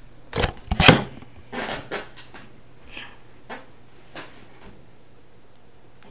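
Handling noise: a quick cluster of knocks and clatters about a second in, then a few fainter clicks and rustles, over a low steady hum.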